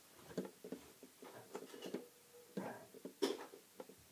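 Small, quiet clicks and scrapes of a plastic LED bulb housing being handled and shifted on a desk, with one sharper knock about three seconds in.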